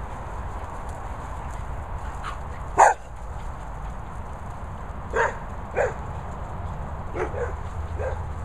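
Dogs barking as they chase and play: one loud bark about three seconds in, then several shorter, weaker barks.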